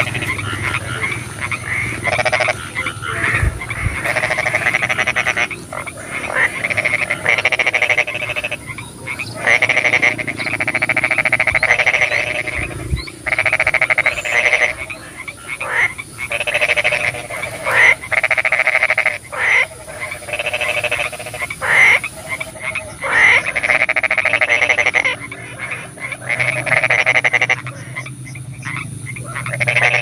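Frogs croaking, calling one after another in trains of rapid pulses, each about a second or two long with short gaps between, over a faint steady high hiss.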